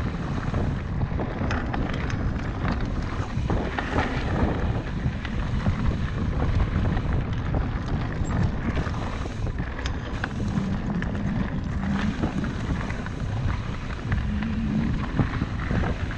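Wind buffeting a GoPro's microphone while riding a mountain bike down dirt singletrack, over a steady rumble of tyres on the trail with scattered clicks and rattles from the bike.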